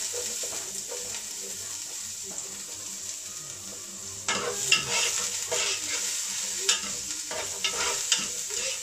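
Chopped onions and ginger sizzling in hot oil in a pot. From about halfway a spoon scrapes and clatters against the pot as they are stirred.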